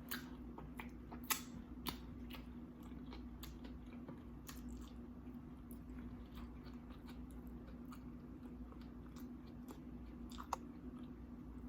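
Close-up chewing of crunchy tortilla-chip nachos, with scattered sharp crunches and mouth clicks a few times a second, several louder ones about a second in, near two seconds and about ten and a half seconds in. A faint steady hum runs underneath.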